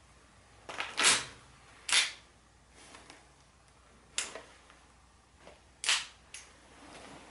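Five or six sharp mechanical clicks and clacks, spaced irregularly, the loudest two in the first couple of seconds: hard plastic and metal military gear being handled, including a replica pistol near the end.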